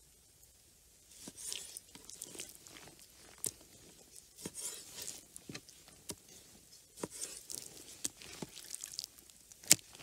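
Knife cutting raw moose meat into chunks on a wooden cutting board, starting about a second in: wet slicing and squishing with irregular knocks of the blade and meat on the board, the sharpest knock near the end.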